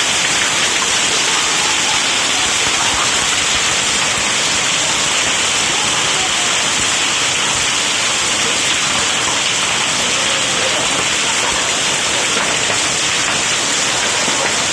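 Hailstorm: hailstones and heavy rain pelting down together in a loud, dense, unbroken patter.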